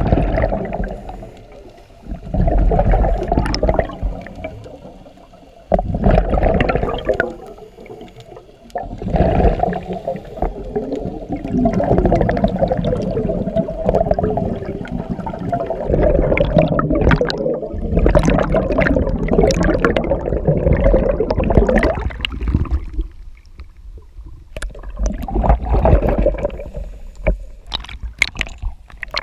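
Air bubbles gurgling and rushing past an underwater camera, coming in loud surges a few seconds apart with quieter gaps between. Near the end it turns to water sloshing and crackling at the surface.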